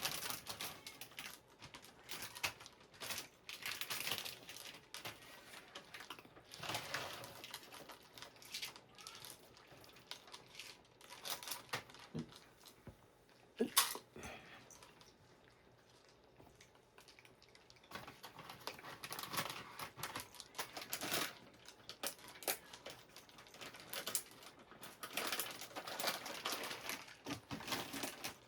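Irregular crinkling rustles and light crunching clicks from cats' dry-food breakfast, with one sharper click about fourteen seconds in and a quieter spell just after it.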